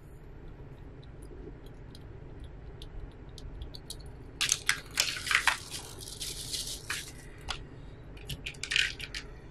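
Small plastic component bags crinkling as they are rummaged through, in a dense stretch starting about halfway in and again briefly near the end. Before that, faint light clicks of small parts being handled.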